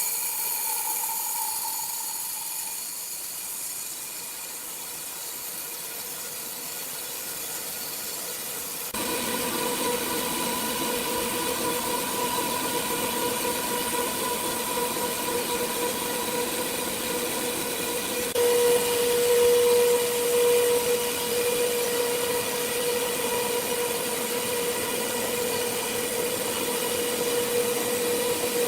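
Sawmill machinery running with a steady whine. About nine seconds in it gets louder, and its tone swells for a couple of seconds around two-thirds of the way through.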